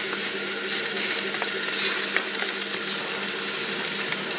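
Automatic vinyl roll lathe slitter running, its circular blade cutting a spinning log of vinyl tape into narrow rolls: a steady machine hum under a hiss, with a few faint ticks about halfway through.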